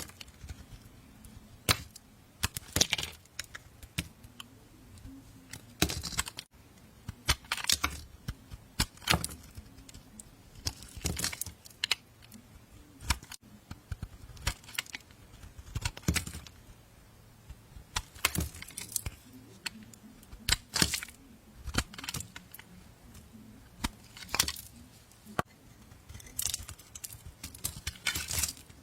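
A blade cutting into a bar of soap, making short crisp crackling, scraping cuts that come in clusters every second or two.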